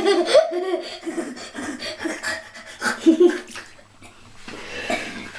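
Water splashing and sloshing in a bathtub as a cat paws and plays in it, with short bursts of human laughter over it.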